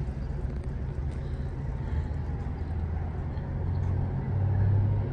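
Steady low outdoor rumble that grows louder near the end.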